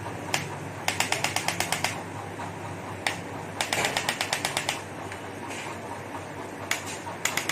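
Electric chiropractic adjusting gun (activator) firing its spring-loaded stylus: two bursts of rapid, even clicks, about nine a second and a second each, with single clicks between them.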